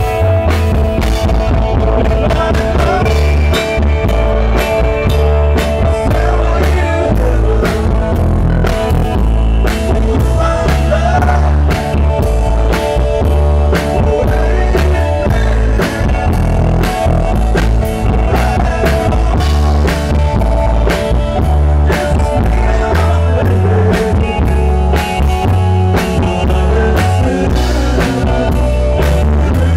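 Live rock band playing with electric guitar, keyboard and drum kit over a steady, heavy beat, while a man sings lead vocals into a microphone.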